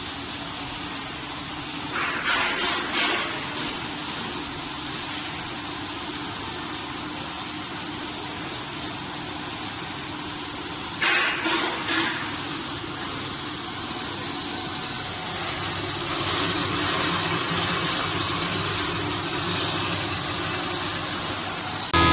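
Electric grain grinder running with a steady, noisy whir. It briefly gets louder twice, and a little louder again in the last few seconds.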